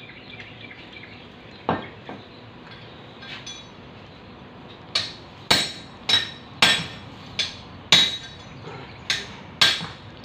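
A hammer striking a metal horseshoe, a farrier shaping the shoe: a run of ringing metallic blows, about two a second, starting about halfway through, after a single knock a couple of seconds in.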